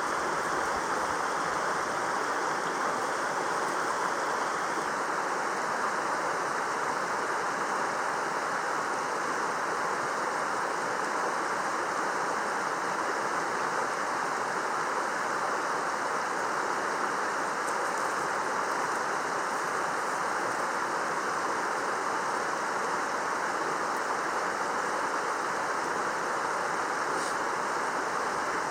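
Mountain stream rushing, a steady and unchanging sound of flowing water.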